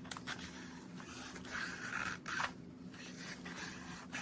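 Kitchen knife blade slicing through a sheet of paper, the paper scraping and rustling as it is cut: a test of the freshly sharpened edge.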